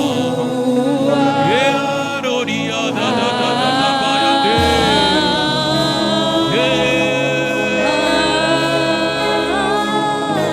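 Gospel worship music: a voice sings long held notes with slides between pitches over sustained accompaniment. A low bass comes in about four and a half seconds in.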